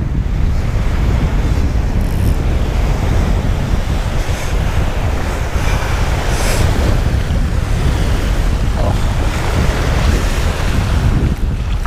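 Strong wind buffeting the action camera's microphone as a steady low rumble, over the hiss of small surf waves breaking and washing on the sand, with a few brief louder splashes.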